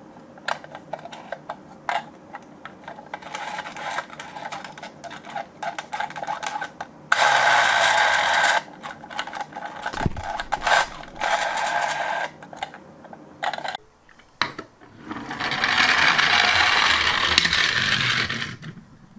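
Toy minicars: scattered small plastic clicks and clatter. These are broken twice by a loud whirring, once for about a second and a half midway and once for about three seconds near the end.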